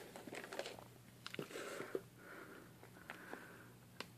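Faint crinkling and rustling of plastic livestock bags being handled in a styrofoam shipping box: a scatter of soft crackles and clicks, with a sharper click near the end.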